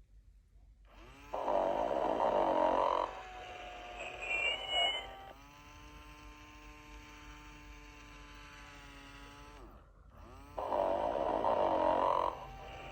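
1996 Tyco Sing & Snore Ernie toy snoring: a rough snore, a brief whistle, then a long steady pitched breath out. The cycle starts again near the end.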